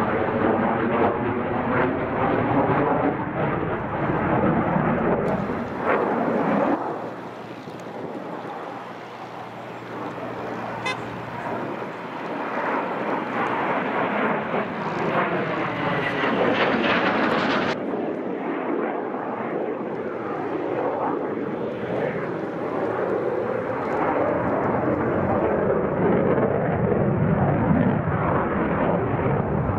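Jet noise from the JF-17 Thunder fighter's single Klimov RD-93 turbofan as it flies aerobatic manoeuvres overhead. It rises and falls with a sweeping, phasing whoosh as the jet passes and turns, drops off for a few seconds about a quarter of the way through, then builds again.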